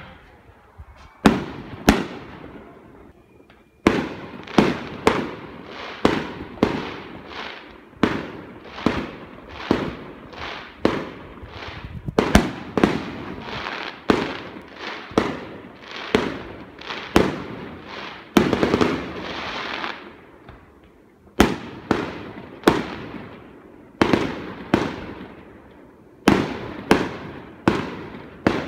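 Fireworks display: a rapid series of aerial shell bangs, about one to two a second, each with a short fading tail. Near the end a denser two-second stretch of continuous crackle comes just before a brief lull, then the bangs resume.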